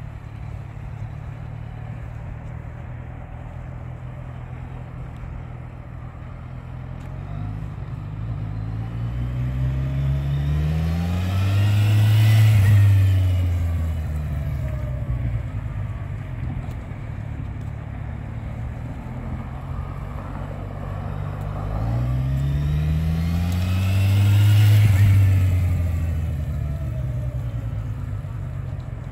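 Kawasaki Ninja 1000cc inline-four sport bike engine running at low riding speed on practice laps. It rises in pitch and loudness as the bike passes close by twice, about a dozen seconds apart, then fades back to a steady hum as it rides away.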